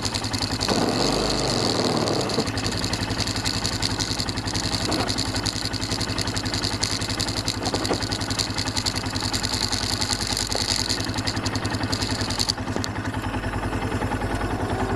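ATV engine idling steadily, heard close, with a brief louder rush of noise about a second in.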